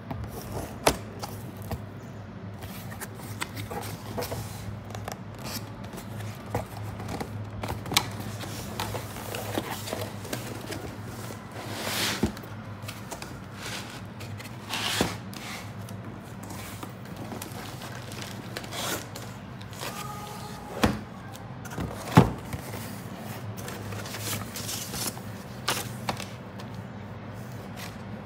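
Laptop packaging being handled: cardboard sliding and scraping, and black foam end-caps rubbing against the box and the bagged laptop, with irregular sharp knocks and taps among the rustling.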